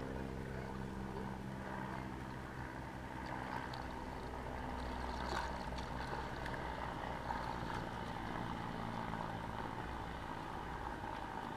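Steady low mechanical hum, with light water movement and a brief splash about five seconds in.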